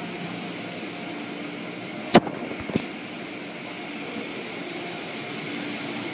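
Automatic car wash running over the car, heard from inside the cabin: a steady wash of brushes, water spray and machinery with a faint hum. About two seconds in come two sharp knocks about half a second apart, the first one loud.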